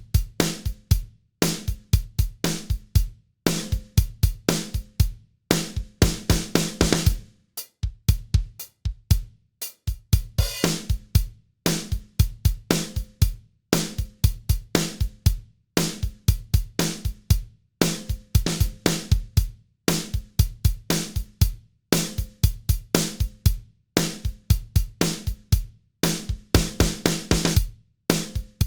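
Drum kit loop of kick, snare, hi-hats and cymbals playing a steady repeating groove, run through the Softube Bus Processor 670 variable-mu tube compressor plugin as drum-bus glue.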